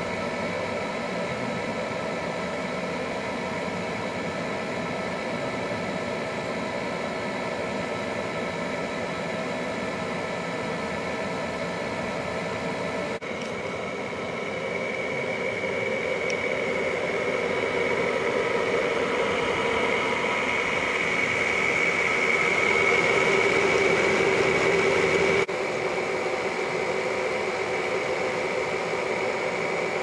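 Frigidaire window air conditioner running on its coldest setting: a steady rush of fan air over a hum of several steady tones from its fans and compressor. It grows louder through the second half, then drops back abruptly a few seconds before the end.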